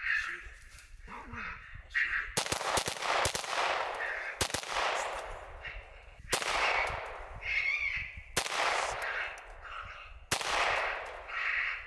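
Five gunshots about two seconds apart, each a sharp crack trailing off in a long echo: repeated shots at a coyote.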